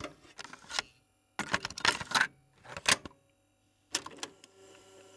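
Sharp clicking and clattering in four short clusters with pauses between them, the last about four seconds in.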